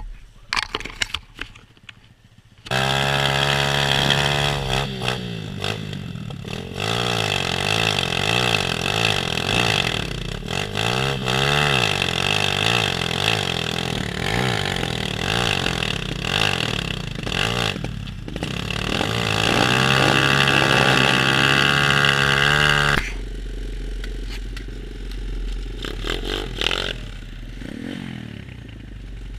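125cc pit bike engine heard from on board, revving up and down over and over as it is ridden hard along a trail. It starts after a couple of seconds of sharp clattering knocks, and about two-thirds of the way in it drops suddenly to a quieter, lower running note.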